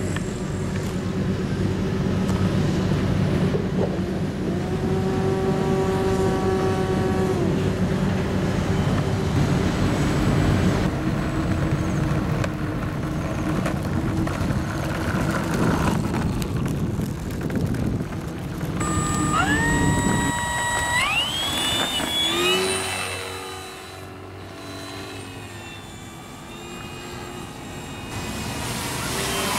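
Electric motor and propeller of a foam radio-controlled P-51 Mustang model running, over a steady low rumble. About two-thirds of the way through, a whine climbs in steps as the throttle opens; it then drops away and swells again near the end.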